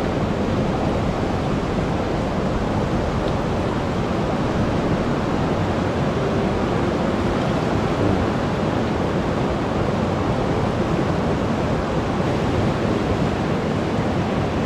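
Mountain river rushing over rapids: a steady whitewater rush.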